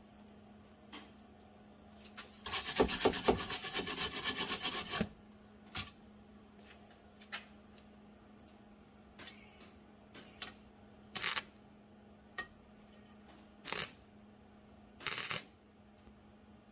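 Welder making short spot welds on a thin, cracked sheet-metal door-handle bracket, the voltage turned all the way down: one rapidly pulsing run of about two and a half seconds near the start, then four or five brief bursts, each under half a second. A faint steady hum runs underneath.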